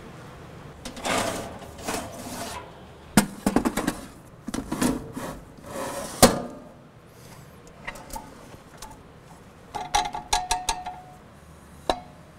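Stainless-steel cremulator cabinet and its fittings handled by hand: a run of clanks, clicks and short scrapes as doors, latches and metal parts are moved, with a cluster of quick ringing metal knocks about ten seconds in.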